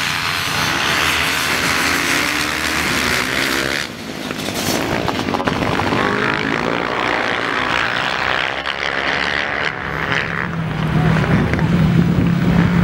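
Several 250 and 450-class dirt bike engines revving hard as the pack races on the ice, their pitch rising and falling as the bikes accelerate and pass, with a brief dip about four seconds in.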